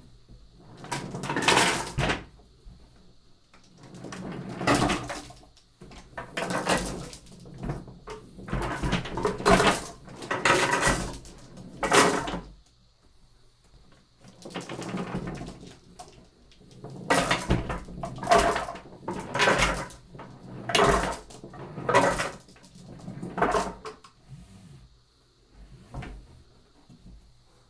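Dozens of paint-coated marbles rolling across paper in a large wooden-framed tray and clattering against the wooden sides, in repeated surges as the tray is tilted back and forth, about a dozen runs each lasting a second or two.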